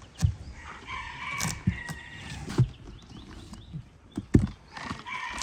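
A large knife being pushed and rocked down through a whole watermelon, with several dull thumps as the blade goes into the rind. A rooster crows in the background about a second in.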